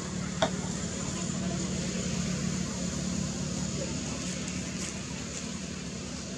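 A steady low engine hum, with a single sharp click about half a second in.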